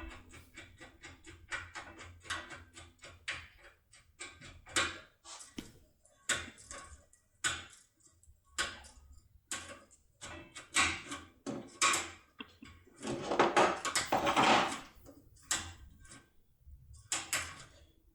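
Lock impression tool being rocked back and forth in a lock cylinder: irregular metallic clicks and rattles, a quick run of them at first and a longer scraping rattle about two-thirds through. The rocking works the tool's guides against the pins to take the key impression.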